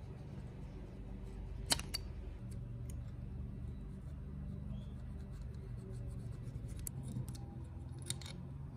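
Hobby knife trimming excess gasket along an engine crankcase seam: faint cutting and scraping with a few sharp clicks, over a steady low hum.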